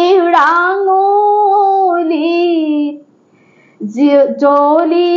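A woman singing an Assamese biyanaam (a bride's wedding song) alone, without accompaniment, drawing out long, wavering notes. She breaks off for a breath about three seconds in, then carries on.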